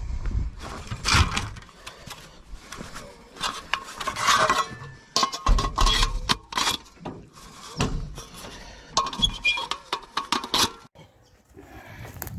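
Irregular knocks, clinks and rustling as dry firewood and kindling are handled and laid for a campfire, several sharp clacks among them.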